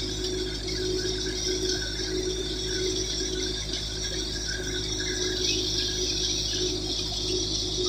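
Tractor-driven wheat thresher running steadily, a continuous rushing hiss over a low hum and rumble.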